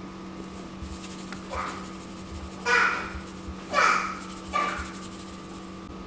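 Four short vocal sounds over a steady low hum.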